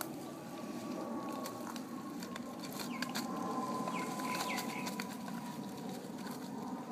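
A Staffordshire bull terrier chewing and tearing a shiny foil-covered paper party hat: irregular crinkling and ripping crackles. A few short bird calls sound in the background about three and four and a half seconds in.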